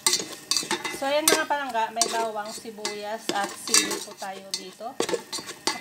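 A spatula stirring and scraping garlic, onion and chili around a stainless steel pot: repeated clicks and scrapes of the utensil on the metal, with short squeaky scraping tones.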